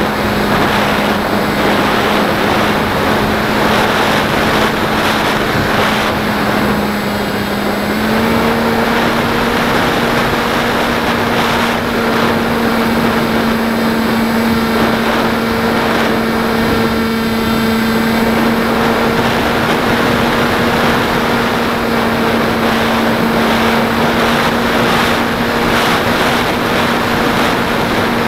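Beta 1400 radio-controlled plane's motor and propeller droning steadily, with loud wind rush over the onboard camera. The motor's pitch steps up slightly about eight seconds in, as the throttle is opened a little.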